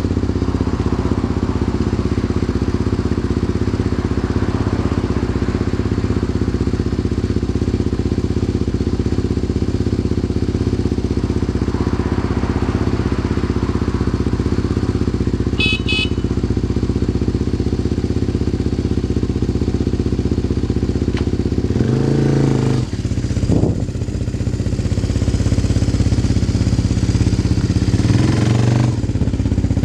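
1993 Yamaha TT250R's single-cylinder four-stroke engine running through an OZ Works aftermarket silencer, idling steadily. It revs briefly about 22 seconds in and again near the end, where it runs a little louder.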